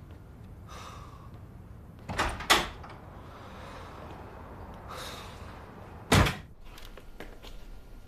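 A door being handled and closed: two sharp knocks close together about two seconds in, then one louder thud about six seconds in as it shuts.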